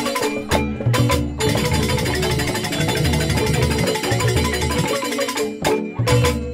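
Balinese joged bumbung gamelan playing: bamboo xylophones struck with mallets over kendang drums in a fast, busy rhythm. The whole ensemble stops short together with sharp accented strokes twice, about half a second in and again near the end.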